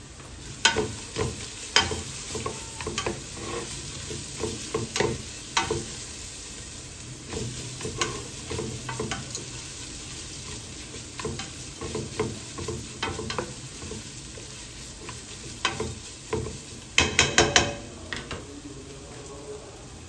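A utensil stirring food in a frying pan, knocking and scraping against it irregularly over a steady sizzle. Near the end comes a quick run of ringing clinks.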